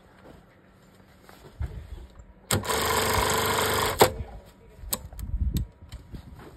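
Industrial lockstitch button-sewing machine running one button-stitching cycle: a loud, steady high-speed run of about a second and a half that stops with a sharp clack about four seconds in. A few lighter clicks follow.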